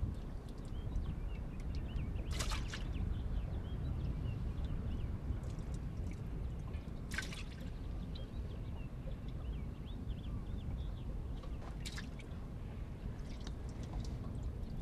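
Water dripping and splashing in a boat's livewell as jumbo yellow perch are lifted out of it. A sharper splash comes about every five seconds over a low, steady rumble.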